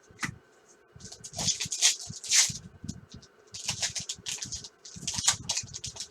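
Baseball trading cards handled and flipped through a stack by hand: quick papery swipes and soft taps, in two spells a second or so apart.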